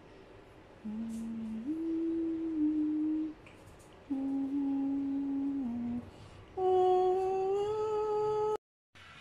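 A person humming a slow tune in three held phrases, stepping between a few notes, to lull a puppy to sleep; it cuts off suddenly near the end.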